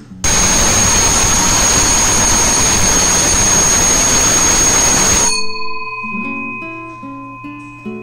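NATIONAL electric gong bell ringing loudly for about five seconds, switched on by an automatic bell timer at its preset time, then cutting off abruptly with the gong's tone fading away after it. Acoustic guitar music plays underneath.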